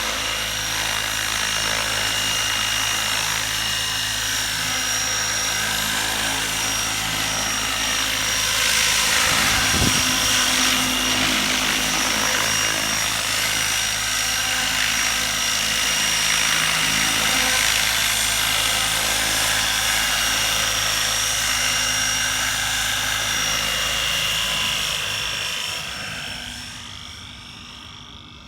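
12-cell electric radio-controlled helicopter in flight: a steady high-pitched motor and rotor whine over a low hum, wavering slightly in pitch, fading away in the last couple of seconds.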